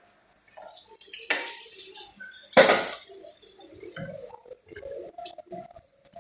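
Kitchen utensils and metal pots clinking and knocking together in scattered strokes, with two louder strikes, one about a second in and one about two and a half seconds in.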